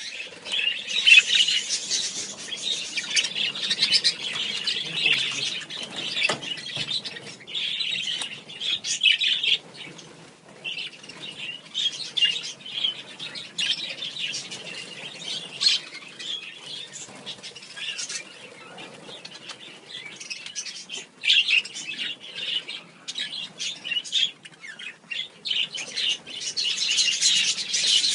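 A large flock of budgerigars chattering and chirping continuously, with wings fluttering as birds take off and land. The chatter is busiest at the start and near the end, and thins out for a while in the middle.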